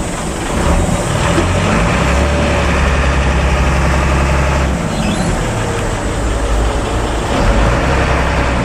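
Intercity bus's diesel engine running in slow stop-and-go traffic, heard from aboard the bus: a low steady drone that strengthens from about two seconds in and eases off near five seconds.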